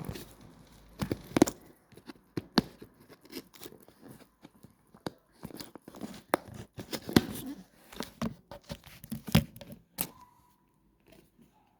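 Sealed cardboard box being torn open one-handed: irregular tearing, scraping and sharp clicks of cardboard and its seal.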